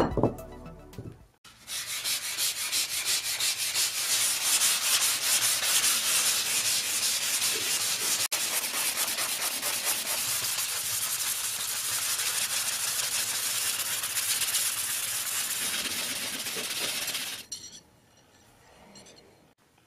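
A rusty steel rod being sanded by hand, with fast, steady back-and-forth rubbing strokes that scrape the rust off. It stops a couple of seconds before the end.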